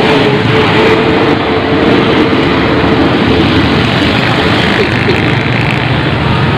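Road traffic passing close by: a motorcycle-sidecar tricycle, cars and a coach bus drive past with their engines running, a continuous dense rumble with a steady drone in the first half.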